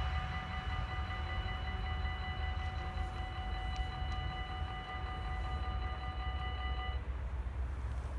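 Dutch AHOB level-crossing bells ringing continuously while the barriers rise to reopen the crossing after the train has passed. The ringing cuts off about seven seconds in as the barriers reach upright, leaving a steady low rumble.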